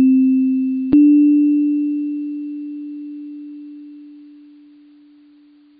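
Electronic pure tones, each starting with a click and dying away like a struck tuning fork. A second tone, a step higher than the one already ringing, is struck about a second in and fades slowly to nearly nothing by the end.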